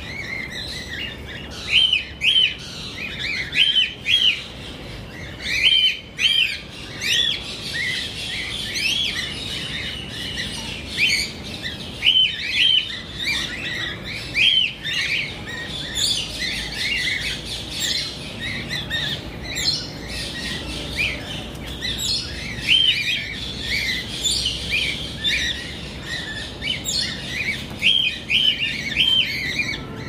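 A flock of cockatiels chirping: short high calls that rise and fall, often in quick runs of two or three, over a fainter continuous chatter.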